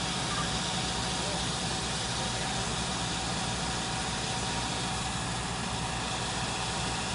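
Engine of an aerial boom-lift truck idling steadily.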